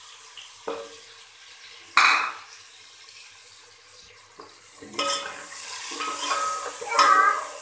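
Metal spoon knocking and scraping against a metal cooking pot as tomatoes and spices are stirred into onions frying in oil, with a light sizzle. There is a sharp knock about two seconds in, and the stirring turns busier and louder over the last two or three seconds.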